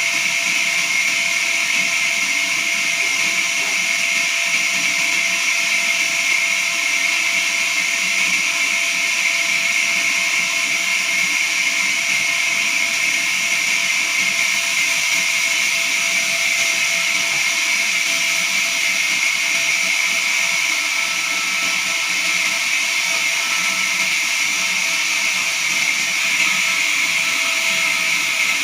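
Horizontal band sawmill running steadily through a jackfruit log: an even, high machine whine with hiss and several steady tones.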